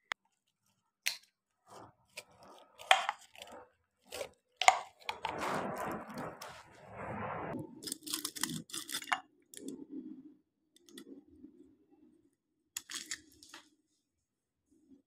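Clicks, crinkling and rustling of packaging as a plastic tablet tube is opened and a powder sachet is torn and emptied over a glass of water. The sounds come as scattered sharp clicks, a longer rustle a few seconds in, and bursts of crackling.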